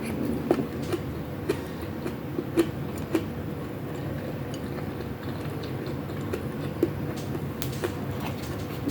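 A person chewing a mouthful of ground pork and chicken wings, with scattered short wet clicks and smacks.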